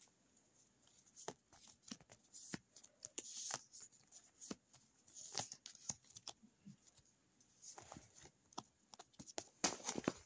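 Stack of paper cutouts being shuffled through by hand: faint rustling and flicking of paper with scattered sharp clicks, busiest just before the end.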